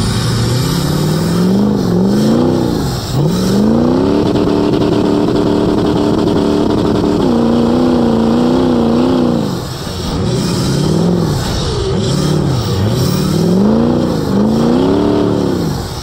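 Mud truck's engine revving hard while bogging through mud, its pitch climbing and dropping in surges. The engine is held high for a few seconds in the middle, then gives several shorter surges near the end.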